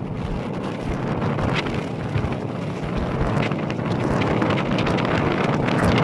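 Wind blowing across the microphone, a steady rush that grows gradually louder.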